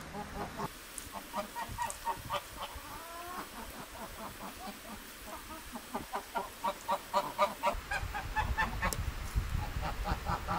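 Domestic geese honking in a long series of short calls, several a second, busiest in the second half. A low rumble comes in about eight seconds in.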